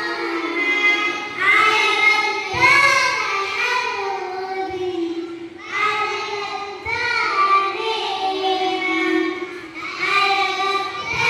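A child singing a song in phrases of a few seconds each.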